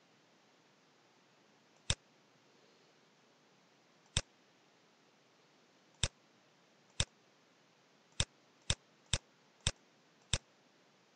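Computer mouse clicking: nine single, sharp clicks over a faint steady hiss, spaced a second or two apart at first, then quicker, about two a second, in the second half.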